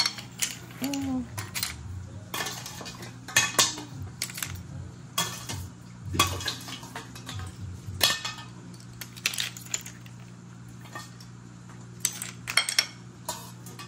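Steamed clam shells clinking against one another and the ceramic bowl as a hand sorts through the pile, in a dozen or so scattered clicks and clatters, over a low steady hum.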